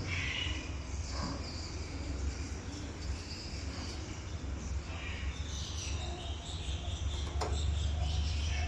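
Faint high chirps from small caged breeding birds over a steady low hum, with one sharp click about seven and a half seconds in.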